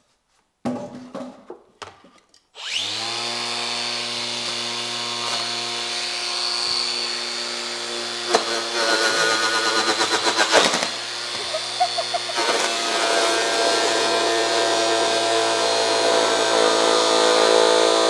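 A few knocks, then about two and a half seconds in a Makita cordless angle grinder with a homemade disc of pressed toilet paper starts and runs with a steady whine. Its sound turns rough and fluttering at times as the disc is pressed against moulded cardboard, removing next to nothing.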